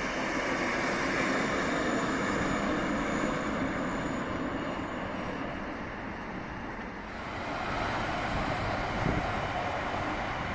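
Steady rumble of rail vehicles on the tracks: first a track-maintenance vehicle moving along, then, after an abrupt change about seven seconds in, a Berlin S-Bahn electric train running on the open line.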